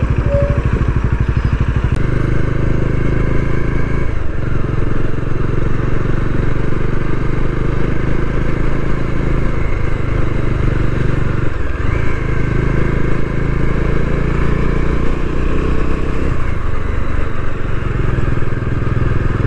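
Bajaj Dominar 400's single-cylinder engine running under way, with wind noise over it. The engine note dips briefly three times, about four, twelve and sixteen seconds in.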